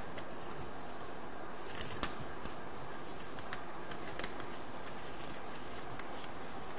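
Steady background hiss of a quiet room, with a few faint light rustles and ticks from sheets of paper being handled, about two seconds in and again around three and a half and four seconds.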